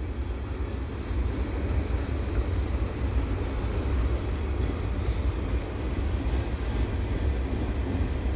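Slow-moving freight train rolling past, a steady low rumble with an even noise over it.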